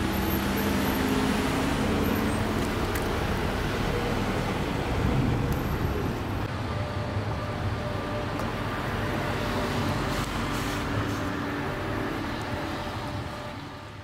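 Steady city traffic noise of passing road vehicles, fading out near the end.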